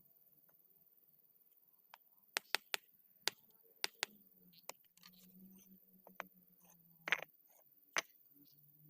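Concrete paving blocks clacking and knocking against one another as they are set in place: a series of short, sharp clacks, several in quick succession.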